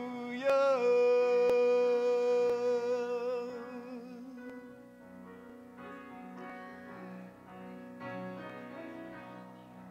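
A man singing a worship song over soft keyboard accompaniment. About half a second in, he swells into one long held note that wavers toward its end and fades after about three seconds. The accompaniment carries on under him.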